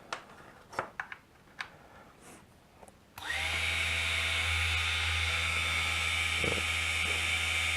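Small hobby drop saw's electric motor switched on about three seconds in and running steadily at speed, with a low hum and a high whine. A few light handling clicks come before it starts.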